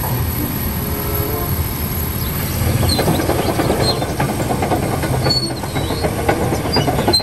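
Caterpillar crawler bulldozer's diesel engine running steadily at a low rumble, with metallic clanking and clicking joining in from about three seconds in.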